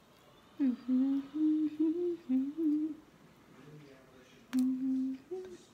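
A woman humming while she eats, with food in her mouth: a low hum stepping between a few notes for about two seconds, then a shorter held hum near the end.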